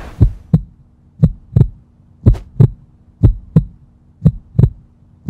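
Heartbeat sound effect: deep lub-dub double thumps about once a second, over a faint steady hum.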